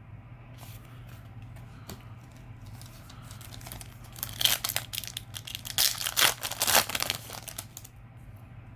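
A Yu-Gi-Oh! booster pack's foil wrapper being torn open and crinkled: light rustling at first, then a louder run of crackling from about four to seven and a half seconds in.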